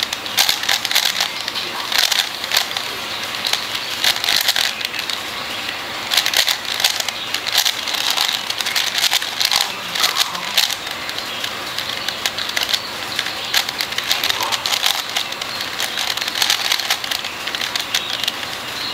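DaYan + MF8 4x4 speed cube being turned fast by hand: a continuous run of plastic clicks and clacks as its layers snap round during a timed solve.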